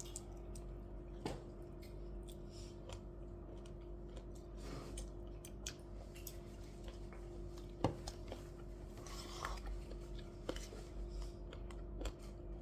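Quiet eating: chewing, with scattered small clicks of utensils against dishes, over a steady hum.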